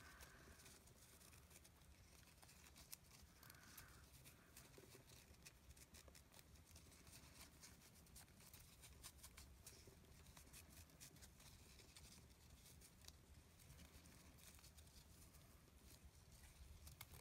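Near silence: faint soft rustling and scattered small ticks of fabric ribbon handled between fingers as a bow is tied, over a low steady hum.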